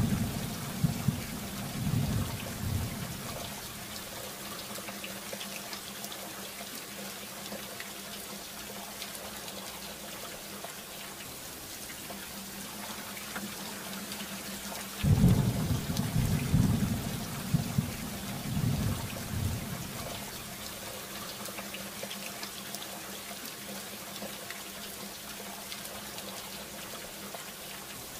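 Recorded rain and thunder: a steady hiss of rainfall with rolling thunder. One rumble dies away in the first few seconds, and another breaks out about halfway through and rolls on for about five seconds.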